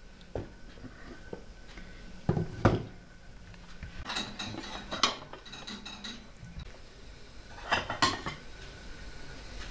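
Pots, lids and plates clinking and knocking on a table as a meal is set out and rice is served. There are a few sharp knocks, the loudest pair about two and a half seconds in, another around five seconds, and a pair near eight seconds as a spoon scrapes rice from a metal pot.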